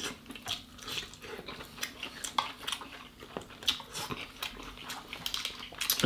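Cooked king crab being picked apart and eaten by hand: scattered small clicks and crackles of shell and meat, with mouth sounds of eating.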